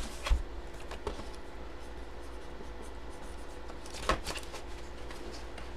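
Hands handling a boxed graded comic on a table: a few short knocks, the loudest about four seconds in, with light rubbing and rustling between them.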